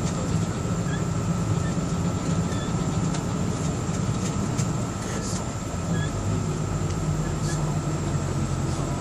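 Bus engine running steadily, heard from inside the cabin as a low drone, with a thin steady high whine over it.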